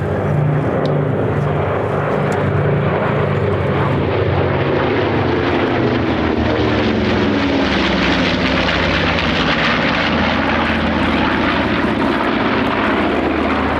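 Piston engines of a warbird formation of a B-25 Mitchell, P-38 Lightning, P-51 Mustang and F4U Corsair flying past, a steady drone whose pitch falls as the aircraft go by about halfway through.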